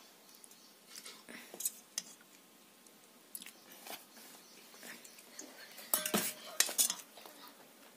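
Steel serving spoon scraping and clinking against a black kadai and stainless steel bowls as fish curry is ladled out, with a cluster of louder clinks about six seconds in.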